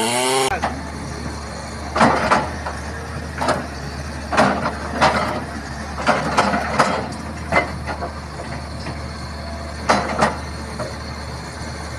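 A revving chainsaw cuts off about half a second in. After that an excavator's diesel engine runs steadily while its bucket works a big hardwood log, with a dozen or so sharp knocks, some in quick pairs, spread through the rest.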